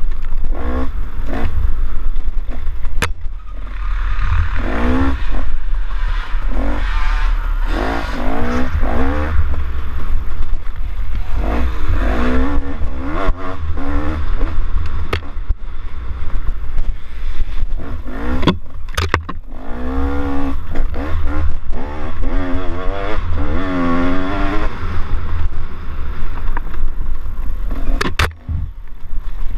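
Dirt bike engine revving up and down over and over as the rider accelerates and backs off on a rough trail. Low wind rumble is on the microphone, with a few sharp knocks from bumps.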